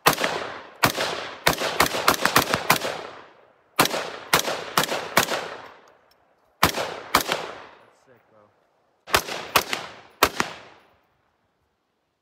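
AR-15-style semi-automatic rifle fired in quick strings, about twenty shots in all in four groups with short pauses between them. Each sharp crack has an echo trailing after it.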